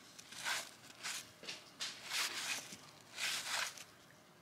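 Cardboard trading cards from a freshly opened pack being slid off one another and flipped through by hand: about six soft, short swishes.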